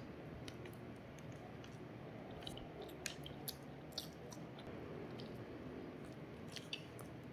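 A person chewing a mouthful of rice and side dishes, faint, with scattered short wet mouth clicks and smacks throughout.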